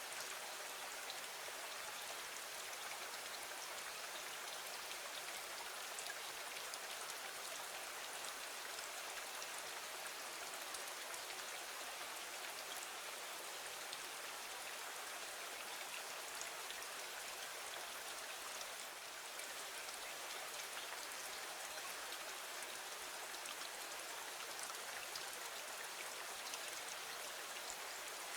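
Steady rain falling against a window: an even hiss with faint scattered drop ticks.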